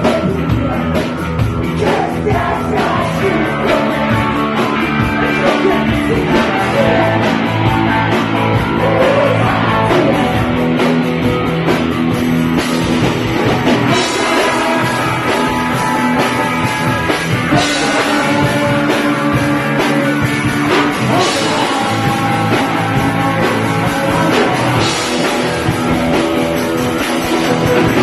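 Punk rock band playing live at full volume: electric guitars, bass and drum kit going without a break.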